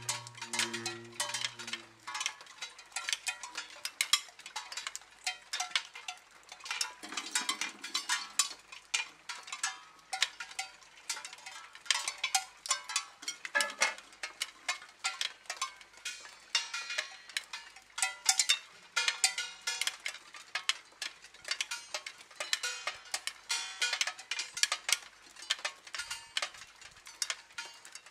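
Soundtrack of an experimental art film: a dense, irregular patter of small clicks and short ringing taps.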